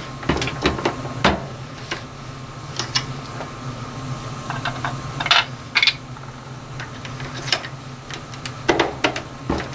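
Dillon Super Swage 600 being worked by hand on 5.56 military brass: irregular metallic clicks and knocks from the lever and cradle as each case is swaged to remove its primer pocket crimp, with brass cases clicking as they are handled. A low steady hum runs underneath.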